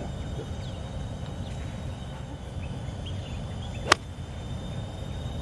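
A wedge strikes a golf ball once about four seconds in: a single sharp click. Behind it are a steady low rumble and faint bird chirps.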